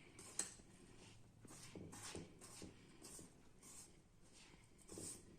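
Faint, repeated scraping and rubbing of a dry powdered flour-and-sugar mixture being mixed in a pan, about two strokes a second, with one sharper click about half a second in.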